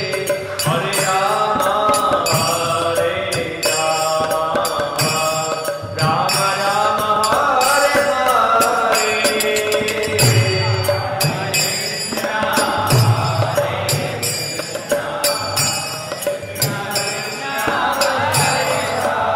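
Devotional mantra chanting sung over music, with a steady percussive beat.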